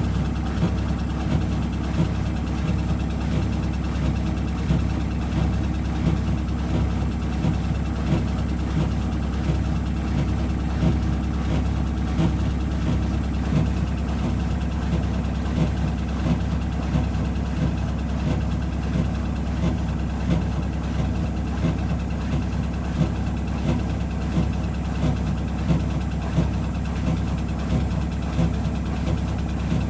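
Whirlpool 5 kg washing machine in its final spin with an unbalanced load: a steady low motor and drum hum with frequent low thuds as the drum knocks.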